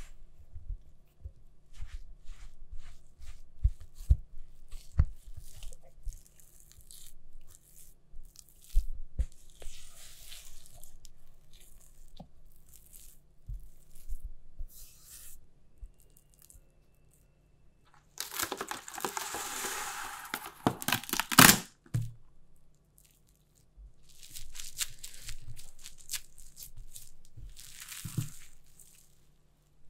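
Crumbly butter sable tart dough being scraped and pressed with a rubber spatula in a glass bowl: short scrapes and soft knocks. About two-thirds of the way through, plastic cling film is pulled from its roll with a loud tearing rustle ending in a sharp snap, then crinkles as it is wrapped around the dough and pressed flat by hand.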